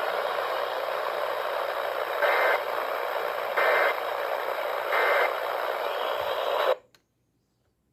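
Emergency Alert System radio audio after the voice message ends: steady radio static with three short bursts of warbling digital data tones about 1.4 s apart, the EAS end-of-message signal. The audio cuts off abruptly about a second before the end.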